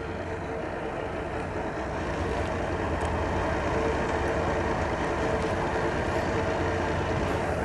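Twin Mercury outboard motors running at low speed as a center-console boat maneuvers near the ramp: a steady engine hum that grows a little louder over the first few seconds.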